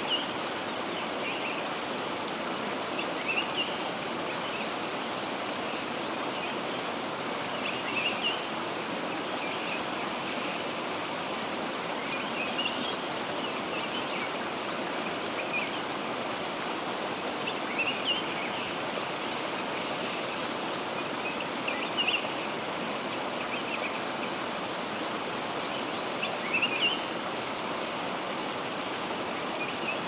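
Outdoor nature ambience: a steady rushing like running water, with small birds chirping in short phrases every two seconds or so.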